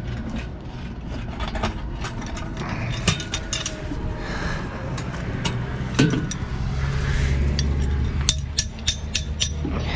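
Bricklaying corner-profile fittings being taken off and handled: metal clicks, clinks and scrapes, with footsteps on loose dirt and rubble. A low rumble swells past the middle, and a quick run of metallic clicks comes near the end.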